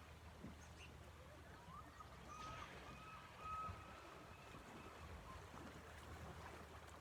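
Quiet shoreline ambience with a faint low rumble. About two seconds in, a distant bird calls a short run of four level notes.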